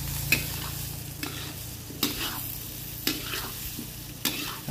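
Long metal spatula scraping and turning goat meat and vegetables in a wok, the food sizzling as it stir-fries. The spatula's scrapes and clinks come about once a second.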